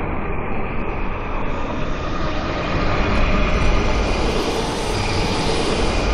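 Designed sci-fi space-storm wind effect: a dense, rumbling rush of wind noise with a faint tonal hum inside it. It swells brighter from about halfway in and eases back near the end, like a slow whoosh passing by.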